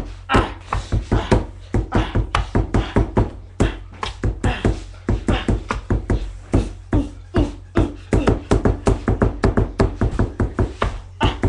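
A person beatboxing a fast beat: quick sharp mouth hits, several a second.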